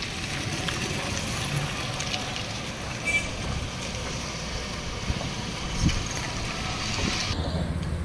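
Steady outdoor background noise: a low rumble under a hiss, with a faint knock or two. The hiss drops away suddenly about seven seconds in.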